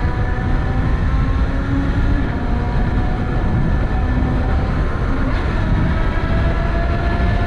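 BMW S1000RR inline-four engine running at speed on the road, its note held steady and creeping up in pitch in stretches, over a loud low wind rumble.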